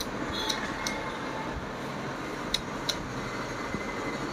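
A handful of small metallic clicks as the thread-tension thumb nut, spring and washer of an old sewing machine are handled and screwed down by hand, over a steady background hum.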